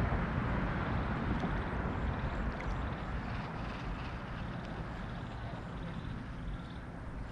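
A low, steady rumble that slowly fades away.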